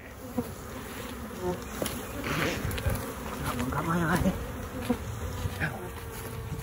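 A honey bee swarm buzzing loudly, stirred up as the cluster is knocked off the swarm trap with a long branch into the hive box below. A few sharp knocks come through the buzzing.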